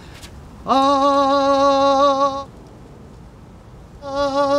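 A man's voice singing a held note with a slight waver, about two seconds long and stopping abruptly. A second held note starts near the end.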